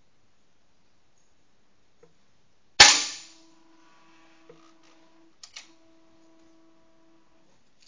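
A single air rifle shot about three seconds in: one sharp crack with a short ring-out in the room. About two and a half seconds later come two light mechanical clicks.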